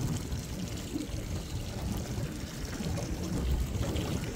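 Sea water sloshing and lapping against the side of a small boat, in a steady, uneven wash.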